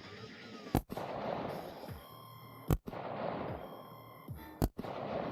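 Three rifle shots, about two seconds apart, each a sharp crack followed by a long rolling echo.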